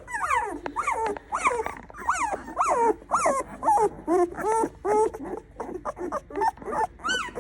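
Newborn Old English sheepdog puppies squealing and whining: a rapid run of short high cries that rise and fall in pitch, several a second, typical of very young puppies fussing before they settle to sleep.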